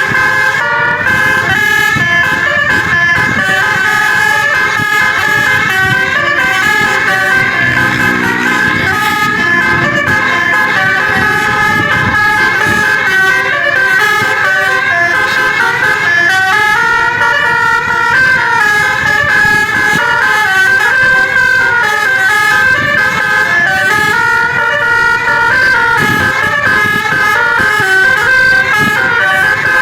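Bus telolet basuri musical air horn playing a continuous tune: several horn tones sound together, stepping up and down in pitch.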